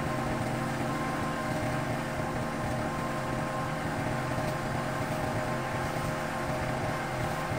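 Kubota compact tractor's diesel engine idling steadily.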